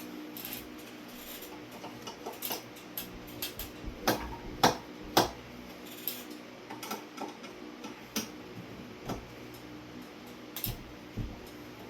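Scattered clicks and light metallic knocks from a ceiling fan being taken down, as its screws and parts are handled. The sharpest knocks come in a cluster about four to five seconds in, over a faint steady hum.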